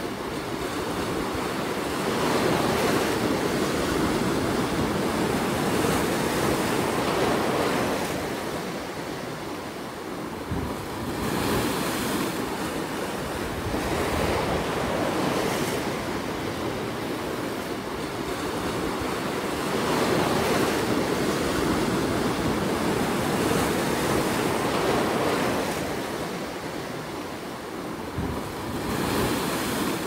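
Ocean surf breaking and washing over rocks along a rocky shore. It is a continuous wash of water that swells and eases every several seconds, with no voices.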